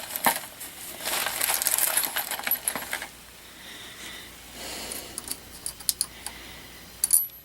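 Brass 9mm cartridge cases clinking and rattling as they are handled, with dense jingling for about three seconds, then a few scattered metallic clicks and ticks near the end.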